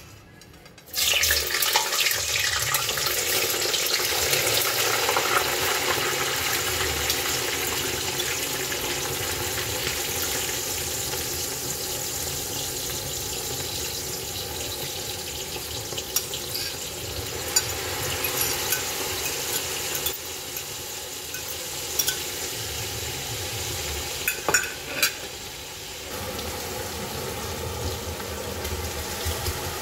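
Chopped onions and pepper sizzling in hot canola oil. The sizzle starts suddenly about a second in and slowly eases, with a few sharp knocks as they are stirred.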